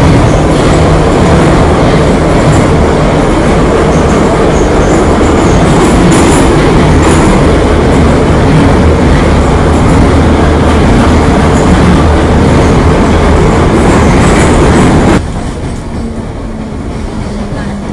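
Moscow Metro train running: a loud, steady rumble of wheels and motors that drops sharply about 15 seconds in to a quieter steady hum.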